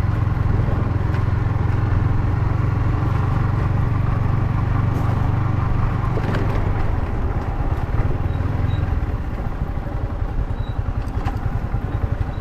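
Yamaha MT-15's single-cylinder engine running steadily as the bike is ridden. About nine seconds in, the note drops to a lighter, choppier sound, as when the throttle eases off. A few faint clicks are heard over it.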